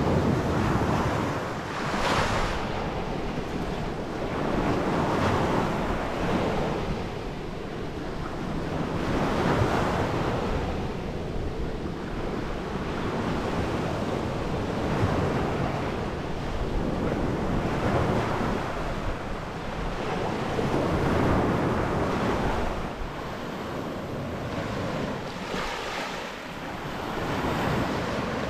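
Ocean surf breaking on a beach, rising and falling as a wave washes in every few seconds, with wind buffeting the microphone.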